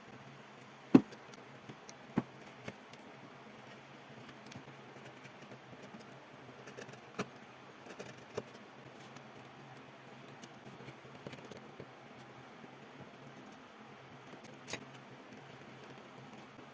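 A few scattered sharp clicks and knocks, the loudest about a second in, over a faint steady low hum.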